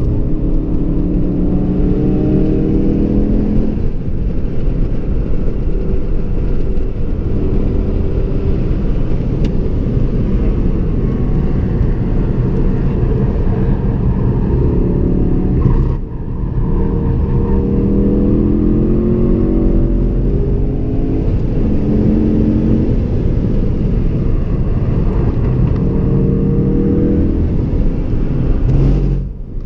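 A Ford Focus RS's turbocharged engine under hard acceleration on a race track, heard from inside the cabin. Its pitch climbs repeatedly through the gears, dropping back at each shift, and the sound cuts away briefly about halfway through and again just before the end.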